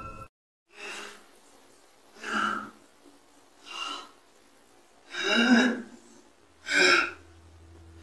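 A young man breathing hard, in five separate loud breaths about a second and a half apart.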